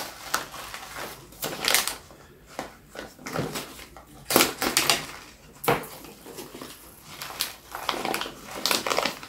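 A plastic bag liner crinkling as it is pulled back by hand over a box of No. 1 lead shot, with the small lead pellets shifting against each other; irregular rustles and crackles with several louder bursts.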